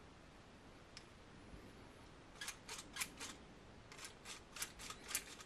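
3D-printed plastic grabber worked by its scissor handles, its parts clicking as the claws open and shut. One faint click about a second in, then a run of sharp clicks: four in quick succession, then a faster run near the end.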